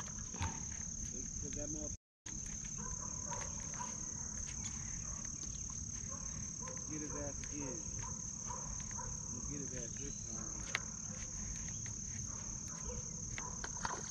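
Insects droning steadily at one high pitch, with a brief cut to silence about two seconds in.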